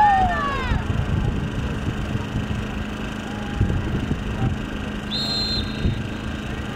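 A referee's whistle gives one short, clear blast about five seconds in, signalling the ball ready for the kickoff. Shouted voices are heard at the start, over a steady low hum and rumble.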